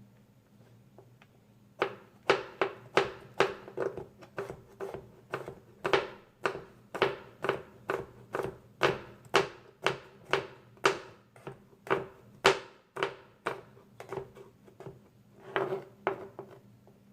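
A steady run of sharp knocks on a kitchen work surface, about two a second, which starts about two seconds in and stops just before the end.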